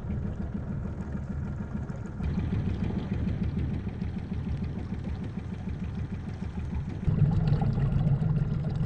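Boat motor running steadily at slow trolling speed, a low hum that gets louder about seven seconds in.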